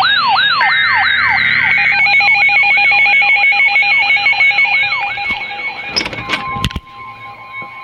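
Electronic emergency alert tones sounding together: a siren-like falling sweep repeating about two to three times a second over steady and rapidly pulsing beeps. About six seconds in these give way to a few sharp clicks and a single steady beep tone.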